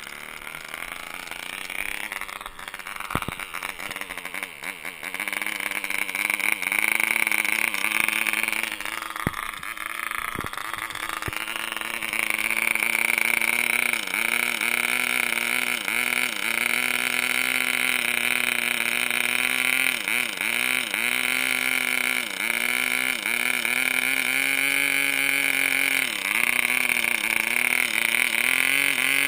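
RYTM 2.5cc model diesel engine with a 9x6 propeller running flat out on a test stand, a steady high-pitched buzz. For the first dozen seconds its speed wanders unevenly, then it settles, with repeated brief dips in speed while it is being adjusted by hand.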